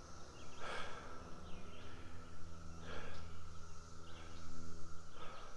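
A hiker's heavy breaths, three of them about two seconds apart, over a steady high drone of an insect chorus in the trees.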